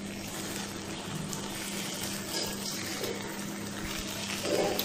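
Stuffed baby eggplants sizzling steadily in oil in a nonstick pan while they are turned with steel tongs. The oil has separated from the masala, the sign that the dish is fully cooked. A low steady hum runs underneath.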